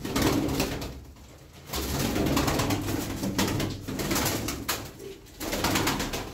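Pigeons flapping their wings in three flurries as they are grabbed in the pen, with cooing underneath.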